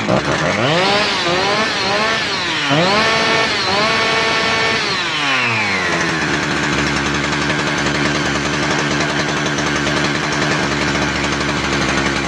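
Husqvarna 372XP two-stroke chainsaw engine being revved up and down several times, held at high revs for a couple of seconds, then dropping to a steady idle about six seconds in. It is being tuned at the carburettor's adjusting screws after a new pump diaphragm and throttle return spring were fitted.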